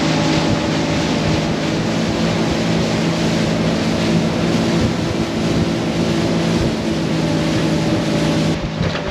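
Sea-Doo Switch pontoon's jet-drive engine running steadily at speed, a constant engine hum under the rush of wind and water. Near the end the rushing eases slightly.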